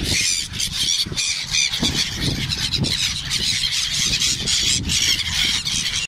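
A large flock of gulls calling in a dense, overlapping chorus of short squealing cries as they crowd in to be fed, over a low rumble.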